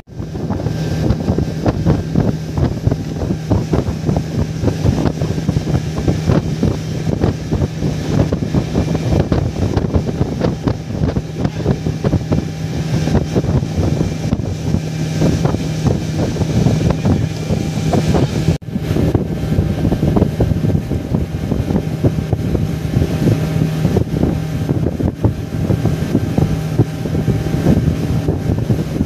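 A small fishing boat's engine running steadily under way, a constant hum, with wind buffeting the microphone. The sound breaks off for a moment about two-thirds of the way through.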